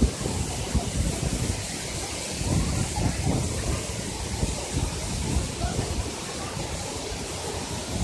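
Waterfall rushing steadily into a pool, a dense hiss of falling water. Low, uneven rumbles of wind buffeting the phone's microphone come and go over it.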